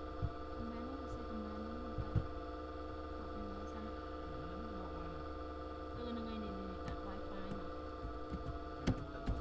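Steady electrical mains hum on the recording, broken by a few short sharp clicks of a computer mouse: one near the start, two about two seconds in, and a few near the end.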